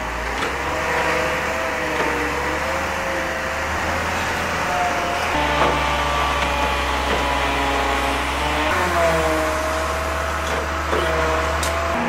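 Dongyang truck-mounted hydraulic knuckle-boom crane with a grapple at work: the truck's engine drones steadily under a hydraulic whine whose pitch slides up and down as the boom and grapple are moved.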